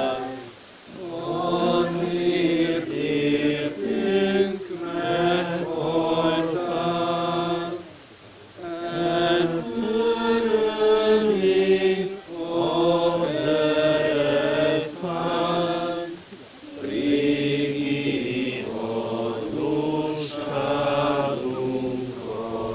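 A group of voices singing a slow church hymn in long phrases, with short breaks between lines about a second, eight seconds and sixteen seconds in.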